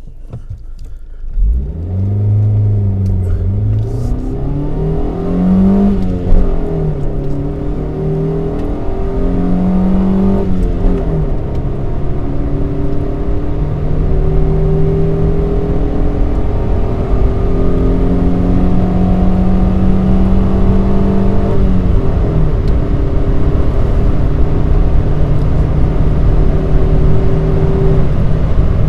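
Stock Honda Civic EJ9's four-cylinder engine and standard exhaust under acceleration. The revs climb and drop back at gear changes about 6 and 11 seconds in, then run at a fairly steady pitch, with another drop a little past 20 seconds.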